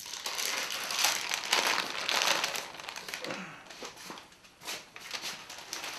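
Oil-impregnated protective paper being peeled off the cast-iron tables of a jointer and crumpled in the hands. It makes a crackling rustle that is busiest for the first two seconds or so, then comes in scattered crinkles.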